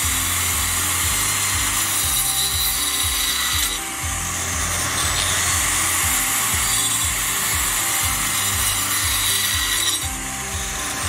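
Handheld electric circular saw with a 4-inch 12-tooth tungsten-carbide-tipped blade cutting through a hardwood block, its motor whining at high speed. The pitch sags and recovers about four seconds in and again near the end. Background music with a steady beat plays underneath.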